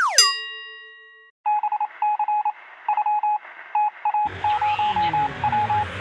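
A cartoon 'boing' sound effect, a falling glide with a ringing ding, opens. After a short gap comes a run of short electronic beeps at one pitch in an irregular on-off pattern like Morse code. About four seconds in, music comes in under the beeps.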